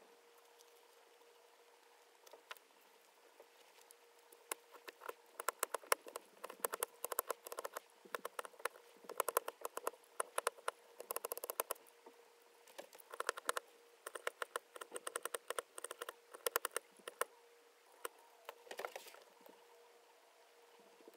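Utility knife blade carving a small wooden lure blank by hand: bursts of quick, sharp clicking cuts into the wood. They start a few seconds in and stop near the end.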